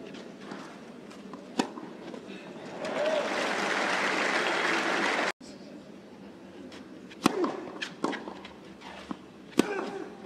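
Tennis balls struck by rackets on a clay court, single sharp hits, then crowd applause for about two and a half seconds that cuts off suddenly. After it comes a serve and another sharp hit a couple of seconds later.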